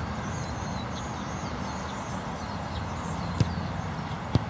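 Two short thumps of a soccer ball being struck: one about three and a half seconds in, then a sharper, louder kick near the end as a goalkeeper runs up and shoots a ball off the grass. Steady background hiss throughout.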